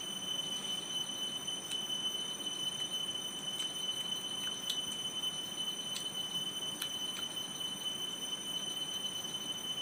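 Quiet eating at a meal: a few faint clicks of fingers and a spoon against metal plates, over a steady high-pitched whine and an even low hiss.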